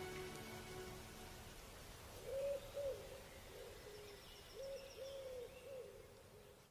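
Music fading out, then a faint series of short, arched hooting tones at about one pitch, several in a row, until the sound cuts off at the end.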